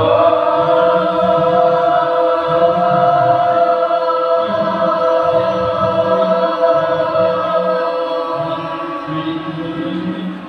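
A group of children chanting together in unison, one long held syllable that rises in pitch as it begins, then stays on a steady note for about ten seconds and eases off near the end.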